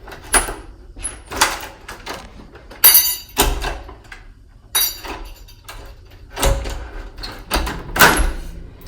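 A small jingle bell hung on a door jingling as the door is moved, in a series of separate jingles mixed with knocks and thuds of the door.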